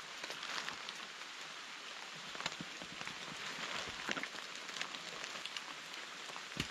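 Steady rain falling, an even hiss with scattered sharp raindrop ticks close by.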